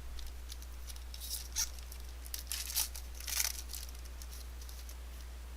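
Foil wrapper of a trading-card pack being torn open and crinkled: short bursts of rustling and tearing, about a second to four seconds in, over a steady low hum.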